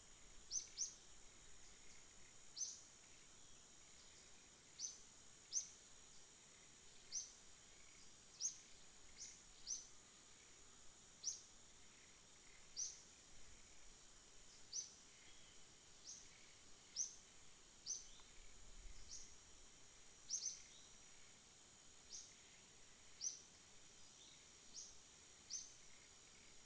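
Faint, short high-pitched chirps, roughly one a second at uneven spacing, over a steady thin high whine.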